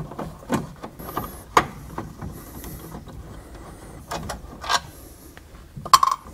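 Screwdriver backing out the screws that hold a classic Mustang's instrument cluster in its metal dash: a string of irregular small clicks, taps and scrapes of the tool and screws, with faint squeaks now and then.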